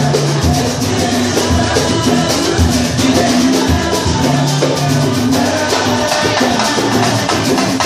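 Batucada samba percussion ensemble playing without a break: deep bass drum strokes under dense, fast rattling and snare-like percussion.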